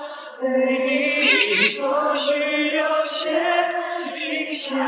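Background music with a singing voice holding long, drawn-out notes.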